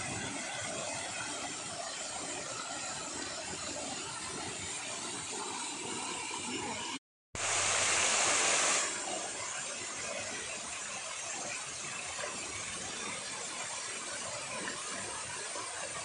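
Steady rushing and splashing of an artificial waterfall. It cuts out for a moment about seven seconds in, comes back louder and brighter for a second or two, then settles again.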